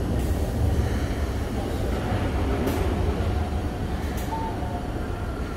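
Diesel engine of a Mitsubishi Fuso Aerostar S city bus running with a steady low rumble at the stop as it gets ready to pull away. Two short sharp sounds come over it, a little before halfway and again about three quarters of the way through, and a brief pair of tones follows the second.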